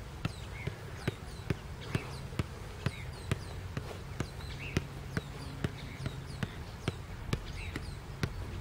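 A soccer ball being juggled off one foot, a steady run of kicks, about two a second.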